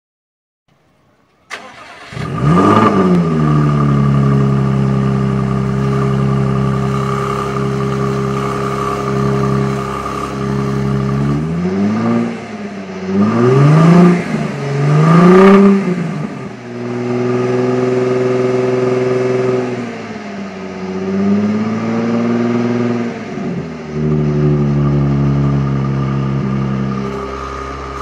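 A 2014 Jaguar F-Type S's supercharged engine starting about a second and a half in, flaring up in revs and settling to a steady idle. About halfway through it is blipped sharply three times, then idles at a raised speed with a gentler rise and fall in revs.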